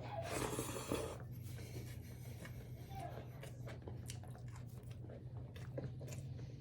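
Close-up eating sounds: chewing a mouthful of rice and pork with wet mouth clicks and smacks, and a louder rustling noise in the first second, over a steady low hum.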